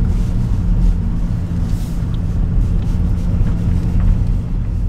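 Car engine and tyre noise heard from inside the cabin while driving: a steady low rumble with a constant hum.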